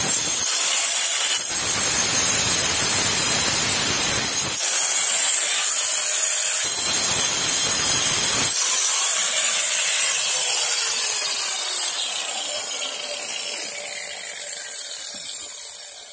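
Angle grinder with a diamond cutting disc cutting a curved line through thin sheet metal, a harsh grinding noise that comes in heavier and lighter stretches. From about halfway its pitch falls and it grows quieter as the disc winds down.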